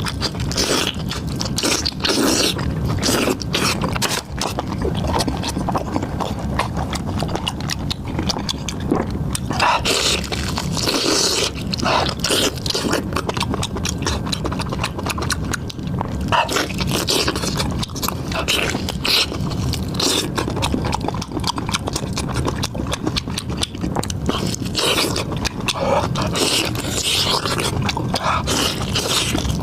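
Close-miked eating: continuous chewing with wet mouth clicks and crunching, dense and unbroken.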